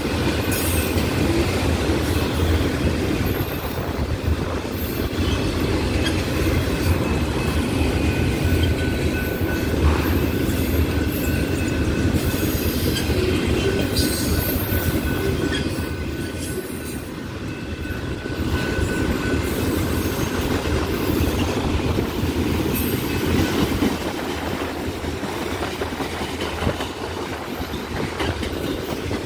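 Empty autorack railcars of a freight train rolling past, a steady rumble of steel wheels on rail, with a faint high wheel squeal through the middle.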